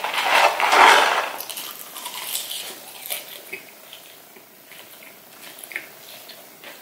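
Close-miked eating sounds: a rustling crackle as a handful of McDonald's French fries is pulled from the paper carton, loudest about a second in, then chewing with scattered small clicks.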